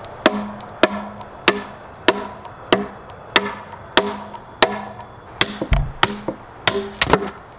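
Hammer blows driving a wooden stake into the ground: about a dozen sharp wooden knocks, roughly one every half second or so, several with a short hollow ring from the post and board, coming a little quicker near the end.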